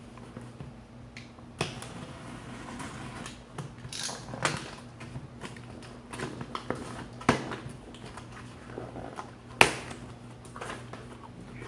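A cardboard shipping box being opened: a box cutter scraping and slitting the packing tape, then the cardboard flaps pulled apart with irregular rasps, scrapes and crinkles, the loudest a sharp snap near the end as a flap comes free.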